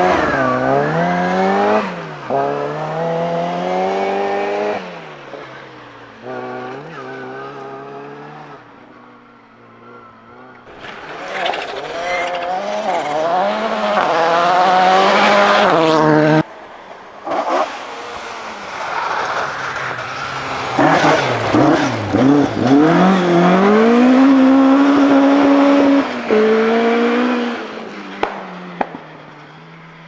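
Rally cars on a gravel stage at full throttle, engines revving up and down through gear changes. First a classic Mini's small four-cylinder engine revving hard out of a corner and fading away, then other rally cars passing at speed.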